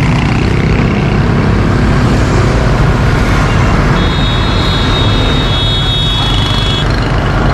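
Heavy diesel engine running steadily under a truck-mounted crane's lift, amid constant road-traffic noise. A high, steady whine joins about four seconds in and lasts about three seconds.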